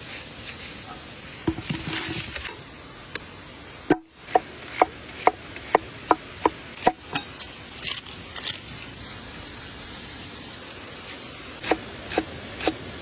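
Knife chopping on a wooden cutting board: a run of about eight sharp knocks, roughly two a second, in the middle, and a few more near the end, with scraping and rubbing before and between them.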